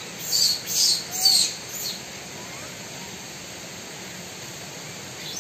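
A bird calling: three quick, sharp, high-pitched calls in the first two seconds, each dipping slightly in pitch, then a fainter fourth.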